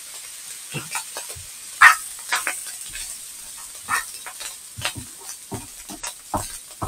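Egg fried rice sizzling in a frying pan while it is stirred and tossed, with irregular scrapes and knocks of the utensil against the pan about once or twice a second.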